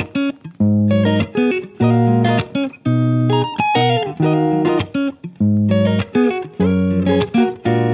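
Background music: electric guitar playing a rhythmic pattern of chords and short notes, with bass.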